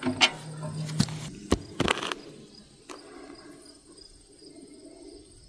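A few sharp metal clicks and knocks in the first two seconds, loudest about a second and two seconds in, as a cover is unfastened and pulled off the housing of a Bear Cat chipper shredder, then only crickets chirping steadily.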